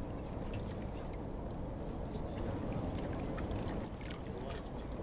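Harbour water lapping against a rocky breakwater, with scattered small splashes over a steady low rumble.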